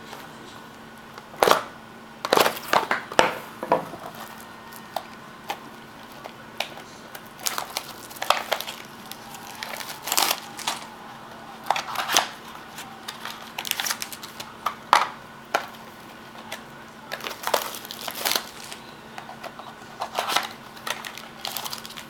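Trading-card box packaging and packs being opened and handled by hand: irregular crinkling, rustling and crackling, with sharper snaps now and then.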